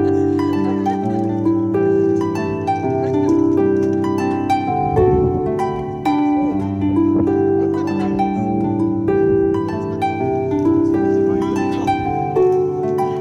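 Background instrumental music: a plucked-string melody of many short, ringing notes over sustained lower notes, played steadily throughout.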